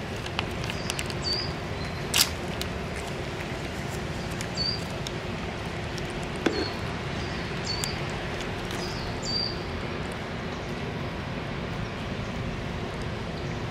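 A calico cat chewing and licking grilled chicken breast at a metal dish, with small wet mouth clicks over a steady background noise. There is one sharp click about two seconds in, and several short high chirps come through the middle.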